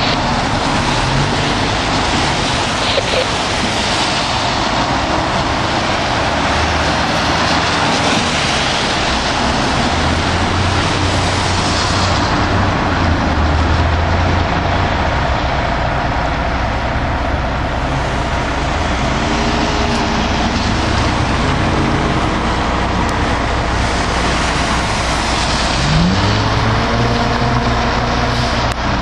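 American LaFrance ladder truck's engine running as the fire engine pulls out of the station bay, over a steady hiss of cars passing on a wet road. A low rising tone starts near the end.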